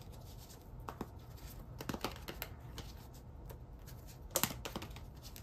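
A few soft, scattered clicks and taps of tarot cards being handled, over a faint low hum.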